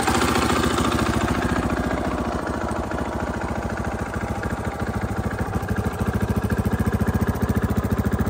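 KTM 500 EXC-F's single-cylinder four-stroke engine idling steadily, with rapid even exhaust pulses. The sound turns duller after about two seconds, and the pulses grow stronger near the end.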